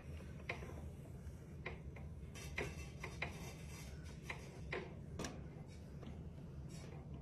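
Faint rubbing strokes and light clicks of long hair being brushed and then pressed with a flat iron, about seven sharp clicks scattered through, over a low steady hum.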